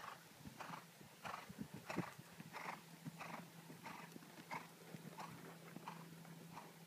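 Horse cantering on a sand arena: soft hoofbeats with a rhythmic breathy sound about once a stride, roughly every 0.6 seconds, growing fainter after about five seconds.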